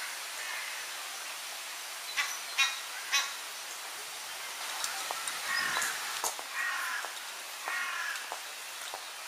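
Egyptian geese calling: three short, sharp calls about two seconds in, then a second run of longer honking calls from about halfway to near the end.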